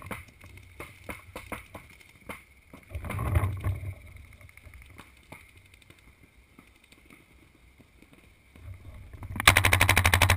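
Paintball marker firing a fast, steady string of shots starting about nine and a half seconds in, loud and close. Before that, scattered faint pops of paintball fire across the field.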